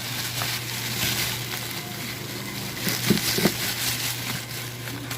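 Crackling noise with a few light knocks over a steady low hum.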